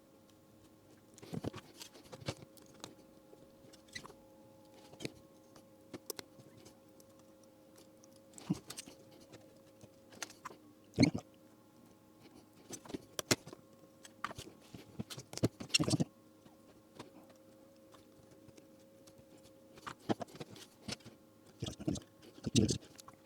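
Irregular small clicks, taps and knocks of hand work at a bench, handling small parts and tools, with a sharper knock about eleven seconds in, over a faint steady electrical hum.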